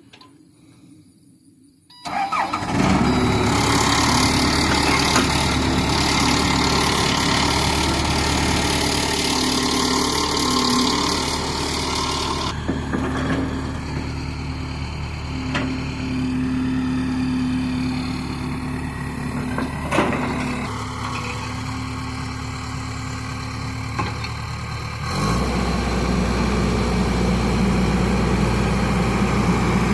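A vehicle engine cranks and starts about two seconds in, then runs steadily. Near the end the engine note drops lower and gets louder.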